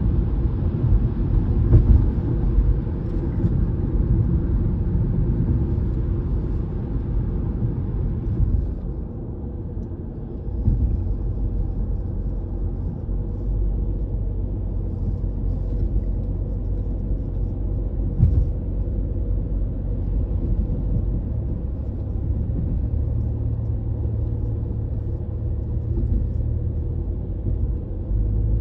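Car driving on an expressway, heard from inside: a steady low rumble of tyres and engine. Three brief thumps come as the tyres cross road or bridge joints, and the rumble drops for a moment about a third of the way in.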